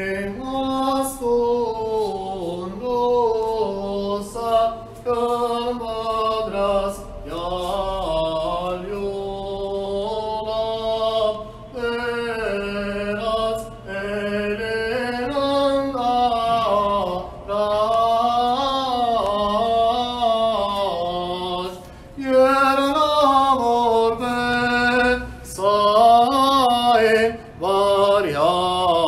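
Unaccompanied male voice chanting an Armenian Apostolic liturgical hymn, a slow, ornamented line in long phrases with short breaks for breath between them.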